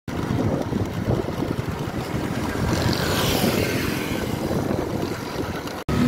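Road traffic with wind buffeting the microphone: motorcycles running on the road, with a vehicle's hiss swelling about three seconds in. It cuts off suddenly near the end.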